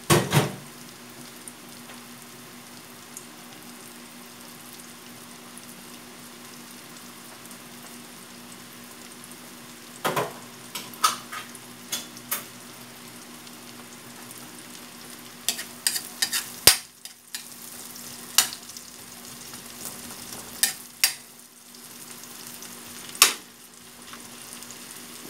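Sliced onion and garlic sizzling gently in butter and oil in a wok over low heat. Sharp clicks and scrapes of a spatula against the wok come in scattered bunches, most of them in the second half.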